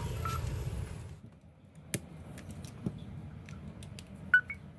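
Small plastic clicks of a Samsung Galaxy Y being handled and a micro-USB charger plug pushed into its port, the loudest click about four and a half seconds in. A short two-note beep, rising in pitch, follows right after that click.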